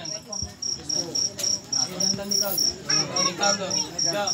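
A cricket chirping steadily in a high, even pulse, about five chirps a second, over low murmured voices.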